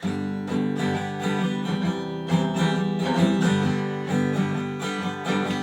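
Acoustic guitar strumming chords in a steady rhythm, the instrumental intro of a song, starting suddenly.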